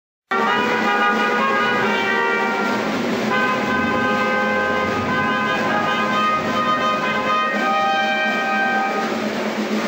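Two trumpets playing a fanfare of long held notes over a drum, with the held notes giving way to the drum near the end.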